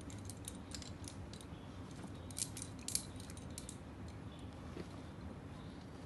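Metal climbing hardware, carabiners and quickdraws, clinking in a scattered run of light clicks, with two louder clinks about two and a half and three seconds in, over a steady low background hum.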